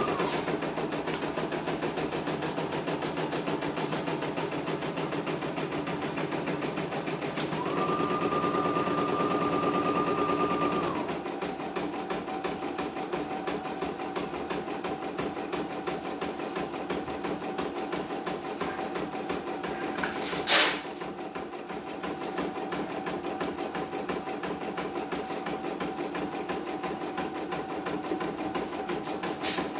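Computerized embroidery machine stitching a design, its needle beating in a fast, even rhythm. About a third of the way in, a higher steady whine runs for a few seconds. After that the machine runs quieter with a lower hum. A single sharp knock comes about two-thirds of the way through.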